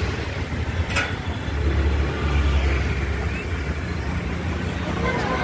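Roadside street ambience: a steady low rumble of passing traffic that swells and eases, with a single sharp click about a second in.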